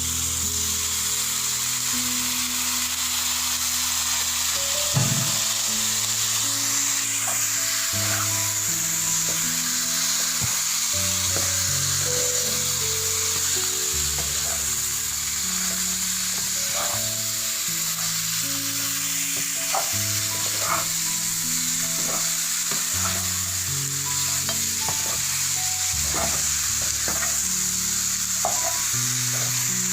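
Chicken pieces sizzling as they fry in a pan, with the spatula knocking and scraping now and then as the pieces are stirred.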